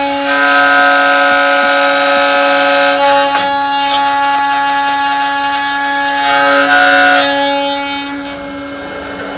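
WORKER FY series CNC router spindle running at high speed while cutting wood, giving a steady whine of several held tones. The tone shifts about three seconds in and again near seven seconds, and the sound drops quieter after about eight seconds.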